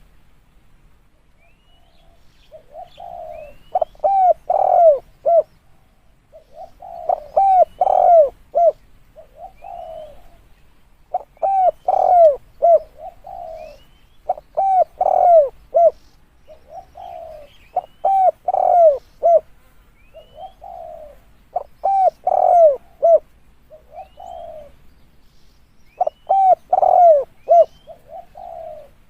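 Spotted dove cooing: a multi-note coo phrase repeated about every three to four seconds, about seven times in all.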